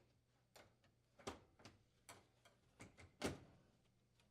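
Faint, scattered clicks and taps of a metal oven door lock assembly being pushed through its frame and hooked onto the mounting tab. The two loudest come about a second in and near the end.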